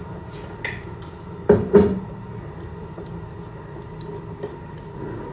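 Two dull knocks in quick succession, about a second and a half in, with a few faint ticks around them.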